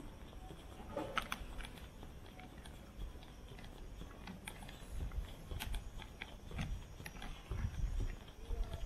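Scattered light clicks and taps over quiet ambience, with low thuds in the second half like footsteps of someone walking.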